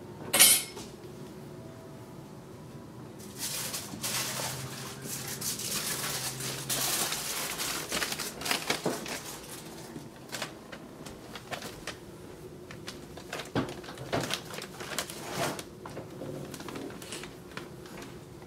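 Small dog nosing into the plastic wrapping of a case of bottled water: plastic crinkling and rustling with scattered clicks and rattles, densest through the middle, after one sharp clatter about half a second in.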